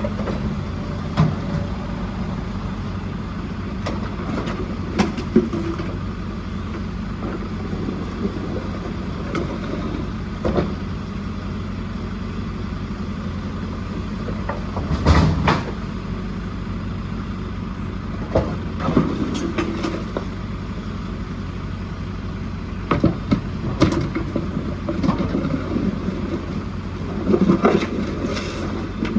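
JCB 4CX backhoe loader's diesel engine running steadily while it loads rubble, with scattered knocks and clatters throughout and the loudest knock about halfway through.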